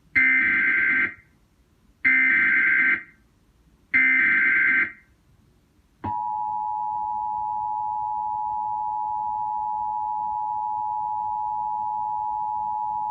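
Emergency Alert System SAME header: three one-second bursts of warbling data squawk, about two seconds apart. Then comes the two-tone EAS attention signal, held steady for about eight seconds, which opens a broadcast emergency alert.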